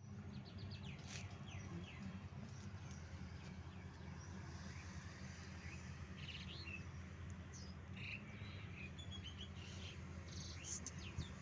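Small birds chirping and trilling in short, scattered calls over a steady low hum.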